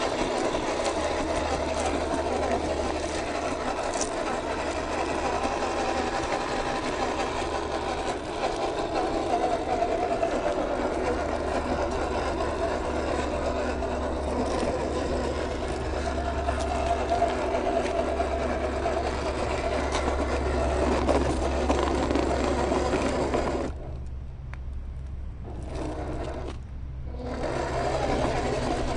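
Small electric motor and gearbox of a 1/12-scale MN128 RC Jeep whirring steadily as it crawls over dirt and rock, with short drops about six seconds and two seconds before the end as the throttle lets off.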